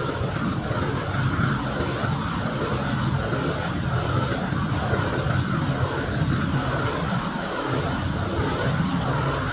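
Propane roofing torch burning with a steady low roar as it heats torch-on bitumen membrane, dipping briefly about seven and a half seconds in.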